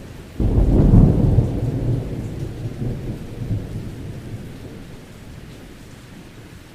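A clap of thunder breaks suddenly about half a second in, then rumbles low and fades away over several seconds, with a few smaller swells. Steady rain runs underneath.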